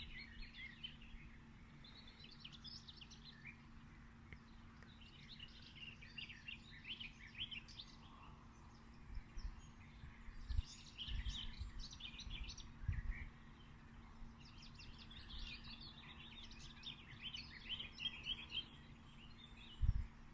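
Songbirds chirping and twittering in bursts of rapid high notes a few seconds apart, over a faint steady low hum. A few dull low thumps come in the middle and near the end.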